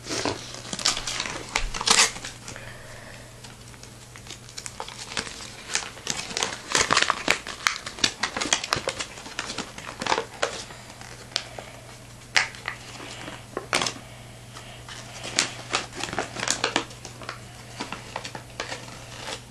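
A paper instruction leaflet being unfolded and handled: irregular crinkling and rustling with scattered sharp crackles, over a steady low hum.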